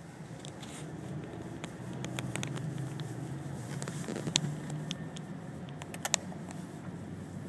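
Freight train rolling slowly in reverse: a steady low rumble of the cars moving, with scattered sharp clicks and clanks from wheels and couplings, two of them louder past the middle.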